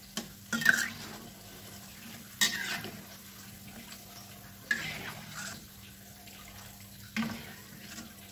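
A metal spatula and a wire spider strainer scraping and knocking against a wok every second or two as fried tofu balls are lifted out of the hot oil. The oil sizzles faintly in between.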